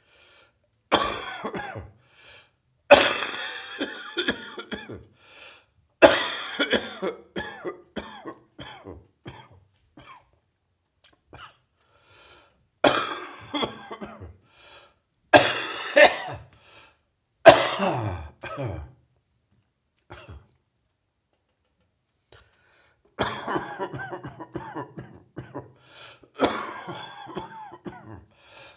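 A person coughing in repeated bouts, each a loud cough trailing off into a few smaller ones, with short pauses between. It is a lingering cough after a chest cold.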